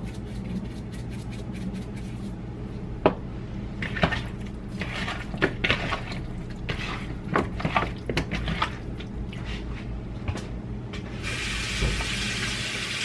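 Hands tossing raw, seasoned chicken wings in a plastic bowl: irregular wet slapping and squishing, with a sharp knock about three seconds in, over a steady low hum. Near the end a steady hiss sets in.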